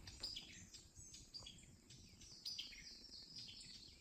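Small songbirds chirping and calling faintly: many short, high chirps and quick downward-sweeping notes, one after another.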